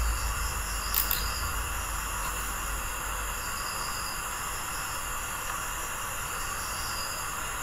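Steady hiss of recording noise with a faint low hum underneath, and a single click about a second in.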